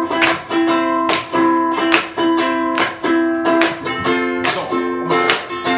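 Ukulele strummed in a steady rhythm of chords.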